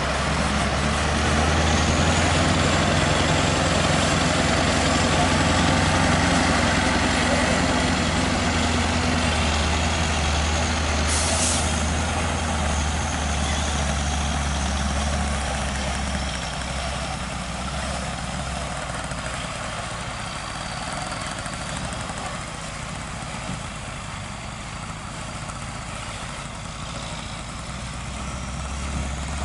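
Scania truck's diesel engine running steadily under load as it hauls a lowboy trailer carrying an excavator, loudest early on and fading as the truck pulls away. A brief hiss about eleven seconds in.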